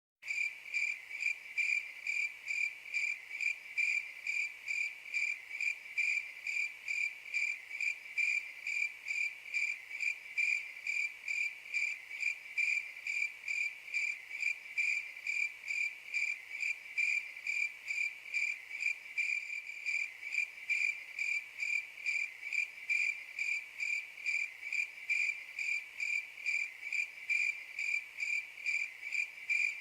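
Cricket chirping: a steady, even train of short high-pitched chirps, about two to three a second, the classic 'awkward silence' cricket sound effect.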